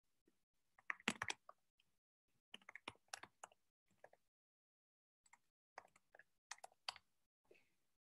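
Faint typing on a computer keyboard: several short bursts of rapid key clicks with brief pauses between them.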